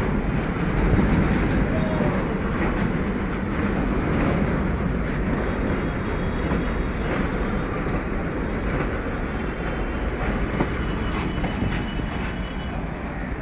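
Freight train's wagons and brake van rolling past on the rails: a steady rumble with a few faint clicks of wheels, easing off slightly near the end.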